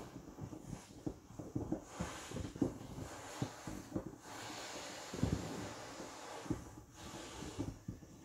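Vinyl of a large inflatable whale creaking and rubbing in short, irregular bursts under a person's shifting weight.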